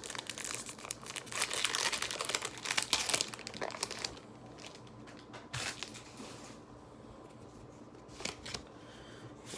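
Pokémon trading card booster packaging being torn open and crinkled, a dense plastic-foil crackle for about four seconds, then a few soft clicks of handling.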